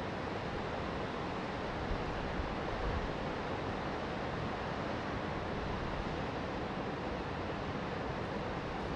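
Ocean waves and wind: a steady rush of surf and wind noise.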